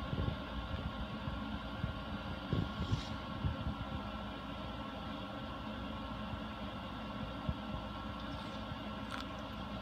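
Cat chewing on a celery stalk close to the microphone: irregular soft crunches and mouth sounds, busiest in the first few seconds, with a couple of sharper crunches. A steady low hum runs underneath.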